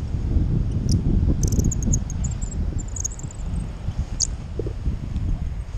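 Wind buffeting the action camera's microphone as a paraglider flies through the air, a steady low rumble, with brief high chirps now and then.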